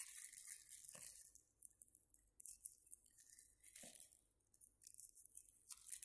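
Scissors snipping a thin plastic bag into small pieces, with the plastic crinkling and rustling in faint, irregular bursts.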